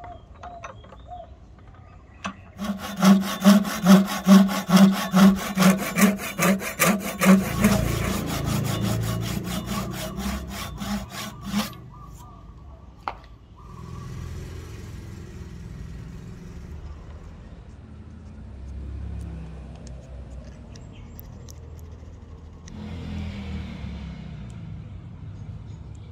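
Hand saw cutting the wedge slot into the top end of an ebony hammer handle, about two strokes a second, the strokes running together in the second half before stopping about twelve seconds in. Fainter handling noise follows.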